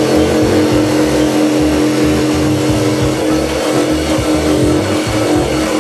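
Handheld electric power tool running steadily with a constant motor whine while working the edge of a round porthole cut-out in a fibreglass cabin side; it stops near the end.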